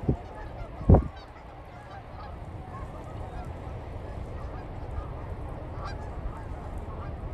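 Geese honking faintly and repeatedly over a steady low rumble of wind on the microphone, with two sharp low thumps within the first second.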